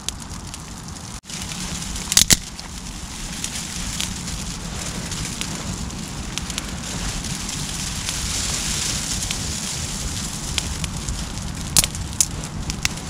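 Small twig campfire crackling as the flames take hold: a steady hiss with scattered sharp pops, the loudest pops about two seconds in and again near the end.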